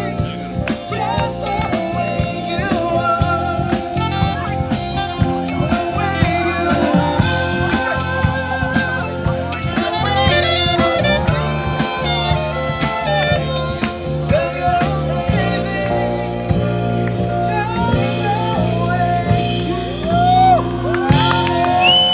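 A band playing a song with a singer, guitar and drums, with a steady beat. Near the end, whoops and cheers from the crowd rise over the music.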